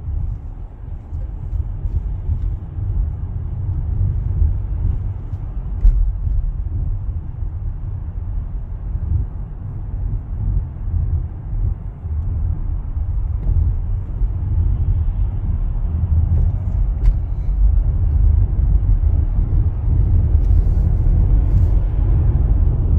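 Steady low rumble of road and engine noise heard from inside a moving car's cabin, growing a little louder over the stretch.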